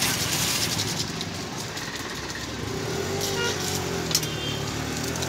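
Street noise with a motor vehicle engine running close by, its low hum growing stronger about halfway through, and a few sharp clicks of utensils.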